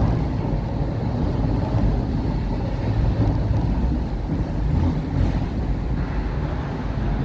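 Docklands Light Railway B07 stock train running, a steady low rumble with no sudden sounds.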